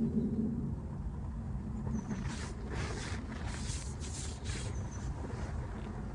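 Steady low rumble of outdoor wind or background noise, with a run of short rustles from about two to five seconds in and a few faint high chirps.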